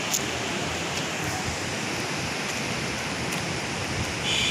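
Steady rushing background noise, with a short high-pitched chirp near the end.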